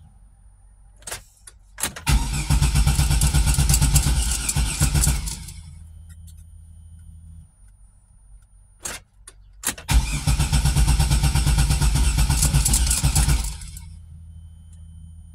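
A Pontiac Grand Am's starter cranking the engine twice, each time for about three seconds after a click or two, without the engine catching: the car has a fuel-supply problem. A quieter low steady hum sits between the two attempts.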